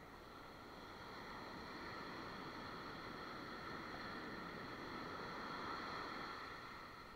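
Shallow ocean surf washing in over wet sand and around bare feet: a rush of water that swells for a few seconds, is loudest around five to six seconds in, then recedes near the end.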